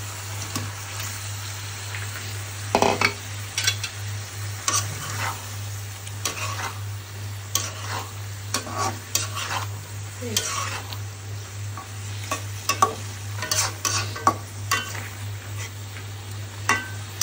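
A utensil scraping and stirring onion-spice masala gravy in a frying pan, in irregular strokes, while it sizzles. A steady low hum runs underneath.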